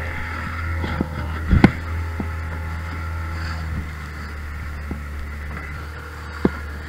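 Fishing boat's engine running steadily with a low hum. There is a sharp knock about a second and a half in and a smaller one near the end.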